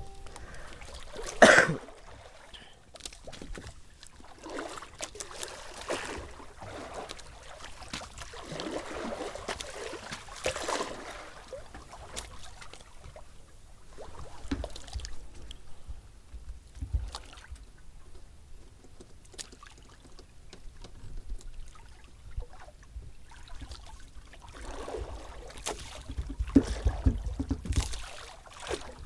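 Water sloshing and lapping against a small boat's hull, with a sharp knock about a second and a half in and low rumbling near the end.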